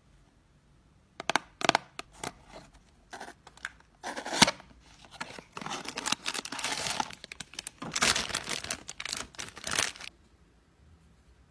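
A small cardboard blind box being handled and torn open, with a few sharp taps and a loud rip about four seconds in. This is followed by crinkling of the figure's clear plastic wrapper, which stops about ten seconds in.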